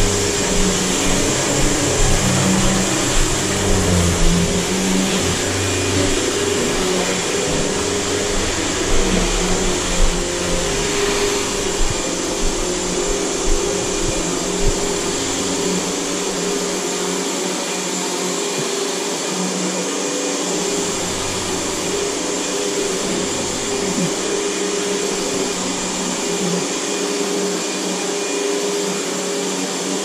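Riccar 100 upright vacuum cleaner running steadily with a high whine as it is pushed back and forth over hardwood floor and a rug. A few small knocks come in the first half, and its deep low hum fades out twice for a few seconds in the second half.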